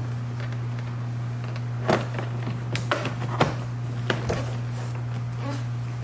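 Several sharp plastic clicks and knocks as the window switch panel's wiring harness is plugged back in and the panel is pressed into the door trim, over a steady low hum.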